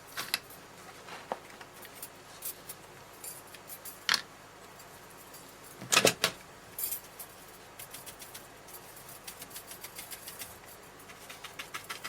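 Light clicks and taps of card and an ink pad being handled while the edges of a paper card are inked, with two louder clacks about four and six seconds in. Near the end comes a fast, even run of light dabbing taps.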